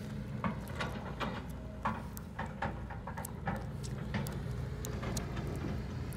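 Hitachi tracked excavator's diesel engine running steadily under load, with frequent sharp cracks and clicks as the bucket rakes through dirt, stones and brush.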